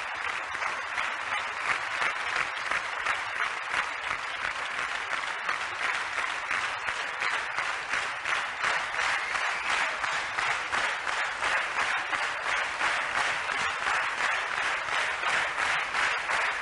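A large audience clapping in sustained, dense applause.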